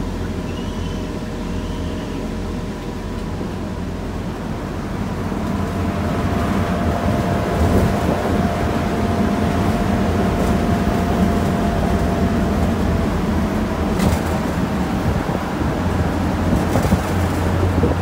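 Open-air trolley bus running, heard from inside on the passenger benches: engine and road rumble that grows louder about a third of the way in as the bus picks up speed, with wind through the open sides. A single sharp click late on.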